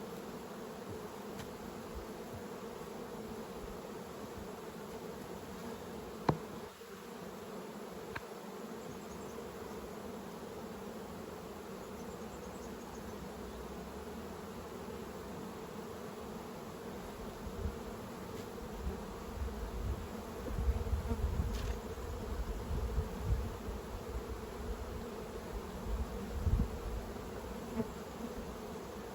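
Honey bees buzzing steadily around an opened hive. There is a sharp knock about six seconds in, and low rumbling bumps in the second half.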